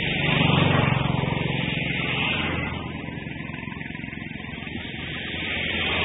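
A motor engine running with a steady low hum, swelling about a second in and easing off a couple of seconds later.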